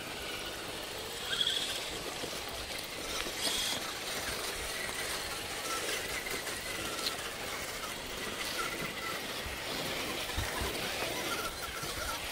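Electric RC crawler trucks driving over a dirt trail: a faint motor and gear whine comes and goes over a steady rustling hiss, with a few soft thumps.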